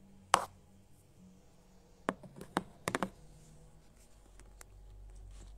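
Handling noise of the recording phone being set up: one sharp knock shortly after the start, then a quick cluster of several taps and clicks about two to three seconds in.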